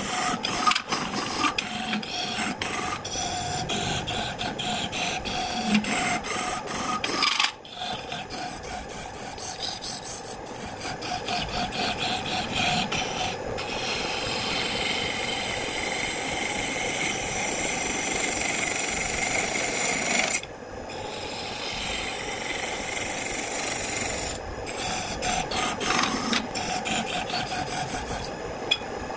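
A wood lathe running while a gouge cuts into the spinning wooden blank: a continuous scraping, shaving noise over a steady motor hum. The cut drops out briefly twice, about seven and twenty seconds in.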